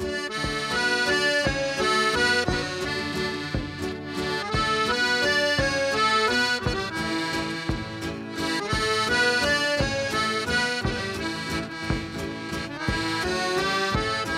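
Accordion playing the melody in an instrumental break of a sung folk song, over a steady beat.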